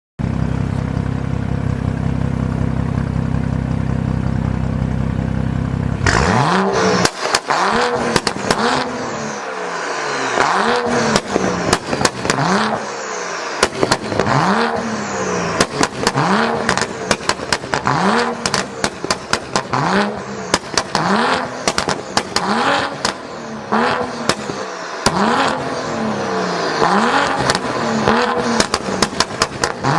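BMW 435i's turbocharged straight-six through an Armytrix valved exhaust, idling steadily for about six seconds and then revved in repeated quick blips, about one every second and a half, with pops and crackles as each rev falls away.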